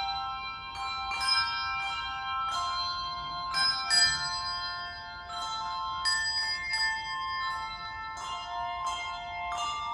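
A handbell choir ringing a tune: bell notes struck one after another, overlapping and ringing on as each new one sounds.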